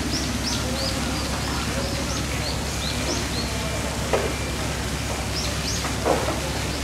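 Birds chirping: many short high calls, several a second, over a steady low hum. Two brief louder sounds come about four and six seconds in.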